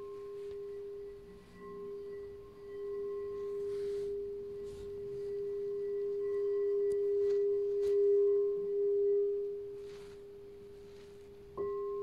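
White crystal quartz singing bowl, tuned to the crown chakra, ringing with one steady pure tone and faint higher overtones. The tone swells and then fades, and the bowl is struck again, starting a fresh ring near the end.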